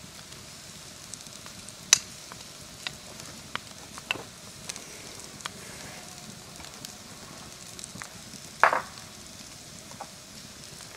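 Wood campfire crackling and popping under barbecue-sauced pork shoulders on a grill grate, with a steady sizzle from the sauce and fat. There is a sharp pop about two seconds in and a louder, longer crackle near the end.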